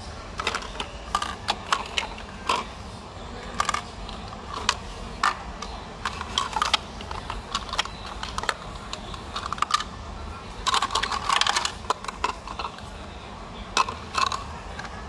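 Small hard plastic toy pieces clicking and clattering irregularly as a toddler handles and drops them, with a busier run of clatter about eleven seconds in.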